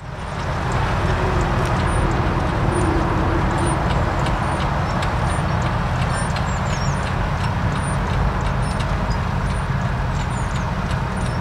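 Tractor engine running steadily, fading in at the start, with sharp clicks about once or twice a second and a few faint bird chirps above it.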